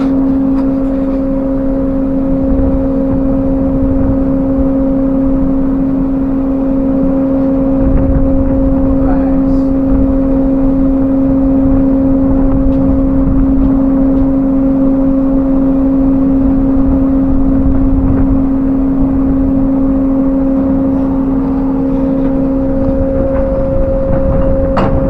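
Steady, loud hum of ship's deck machinery, one low tone with its overtone over a rumble. A couple of faint metallic clinks come from a steel tank hatch cover and its clamps being handled, one in the middle and one near the end.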